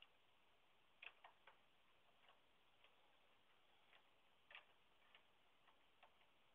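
Faint, irregularly spaced light clicks of a hand tool working on a car battery's fittings as they are tightened back into place, about a dozen over a few seconds.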